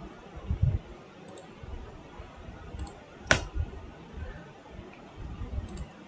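Computer mouse and keyboard clicks at a desk: one sharp click a little past halfway, a few faint ticks, and soft low bumps in between.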